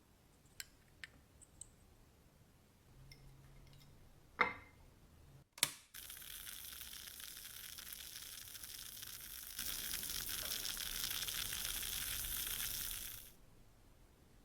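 A few light clicks and two sharp knocks, then a steady hissing spray for about seven seconds, stepping louder partway through before it cuts off.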